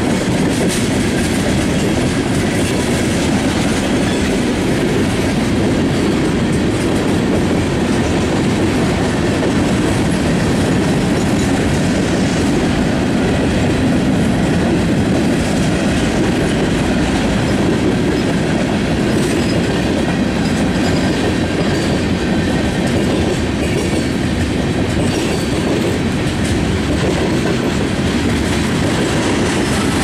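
Freight cars of a passing train rolling by: refrigerated boxcars, tank cars and covered hoppers. Their steel wheels on the rail make a steady rumble.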